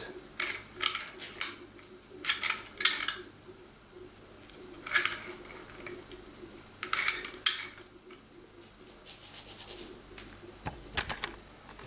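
Clusters of small clicks and rattles from the controller of a Tri-ang toy train set being worked and the metal track being handled, over a faint steady hum. The locomotive has stalled on the track and is not running.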